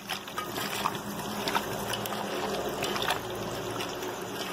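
A hand squishing and mixing raw chicken pieces in a wet yogurt-and-spice marinade in a steel bowl: continuous wet, sticky mixing sounds with small clicks. A faint low hum runs underneath.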